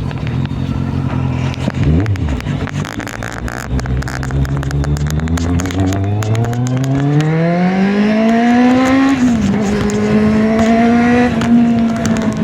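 Kawasaki Z750 inline-four motorcycle engine under way. It holds a steady note, then accelerates with the pitch climbing smoothly for about five seconds, drops sharply at an upshift, and settles into a steady higher cruise.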